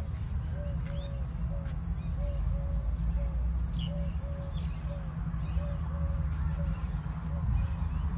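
A bird in the background repeating a short hooting note about three times a second, with a few fainter higher chirps, over a steady low rumble.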